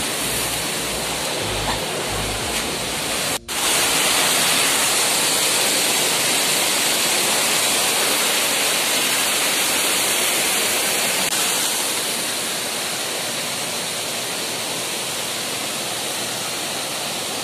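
Mountain stream rushing over boulders in small cascades: a loud, steady rush of water, cut out for an instant about three seconds in.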